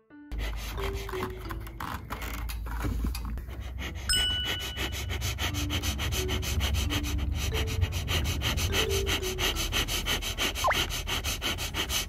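A person sniffing rapidly and repeatedly close to the microphone, a quick string of noisy sniffs. A bright sound-effect ding about four seconds in, over soft background music with a few low notes.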